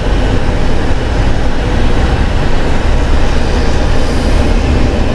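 Steady road and engine noise of a vehicle rolling slowly along a paved road, with a low rumble under an even hiss.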